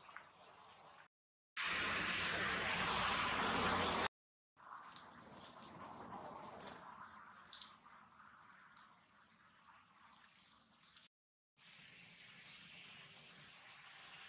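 Steady high-pitched drone of insects, broken by three brief silent dropouts where clips are cut together. There is a louder stretch of even noise between the first two dropouts.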